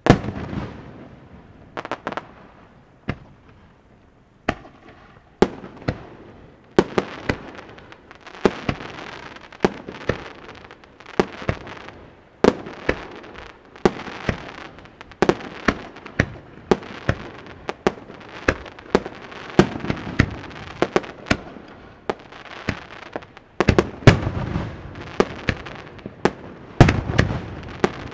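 Aerial firework shells bursting, with crackling between the bangs. One sharp bang opens it and a few bursts follow, then from about five seconds in they come in a rapid, dense volley that is thickest near the end.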